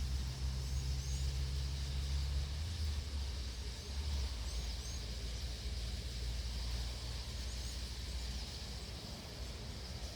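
A large flock of birds swarming, with many faint high chirps over a steady low rumble.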